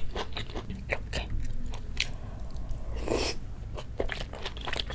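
A person chewing food close to the microphone: wet mouth clicks and smacks. There is a brief rushing noise about three seconds in, and another bite near the end.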